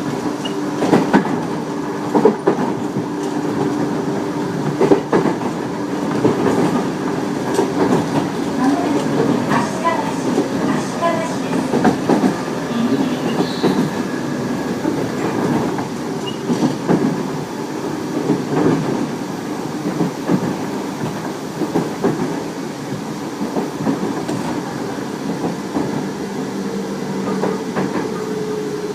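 Tobu 30000-series electric train running at speed, heard from inside the car: a steady traction motor and inverter hum with irregular knocks and clickety-clack from the wheels over rail joints. The uploader believes the set has permanent-magnet synchronous motors.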